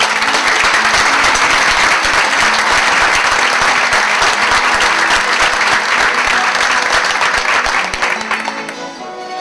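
Audience applauding loudly in a theatre hall, dying away about eight and a half seconds in, with the group's string instruments faintly audible under it.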